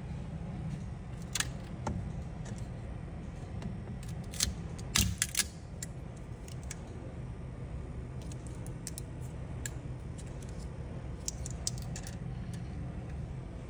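Small 3D-printed plastic parts clicking and clacking as they are picked off a textured printer build plate, loudest in a cluster about four to five seconds in and lighter near the end, over a steady low hum.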